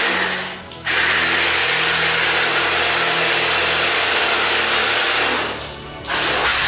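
Kärcher K3 electric pressure washer running, with water spraying through a rotating wash brush; the spray and motor stop briefly twice, just under a second in and again about a second before the end, then start again.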